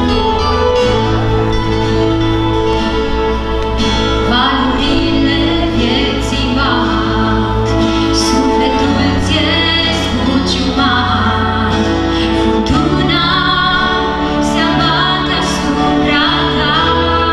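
Live church worship band playing a Romanian hymn: held bass and keyboard chords at first, then female voices enter singing about four seconds in and carry on in phrases.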